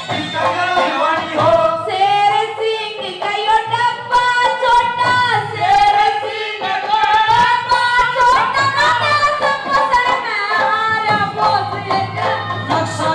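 A woman singing a Haryanvi ragni into a handheld microphone, amplified through the stage sound system, in long held notes that bend up and down.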